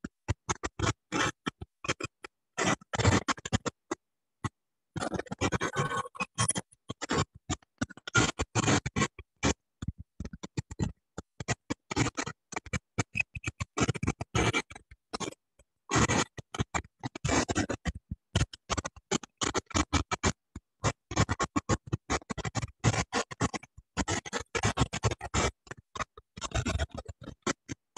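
Garbled, choppy audio from a participant's open microphone on a video call, cutting in and out many times a second: the kind of disturbance that breaks into an online class.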